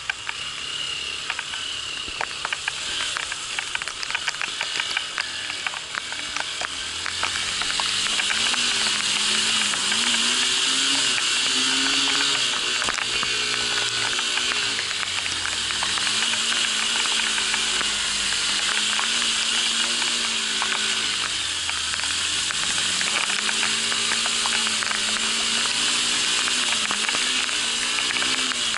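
Heavy rain and water spray hissing from a flooded road, with raindrops ticking rapidly on the camera housing, strongest in the first several seconds. From about seven seconds in, the Honda Bros 150's single-cylinder engine runs underneath, its pitch rising and falling with the throttle.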